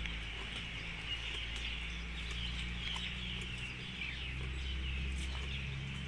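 Birds chirping steadily in the background over a low steady hum.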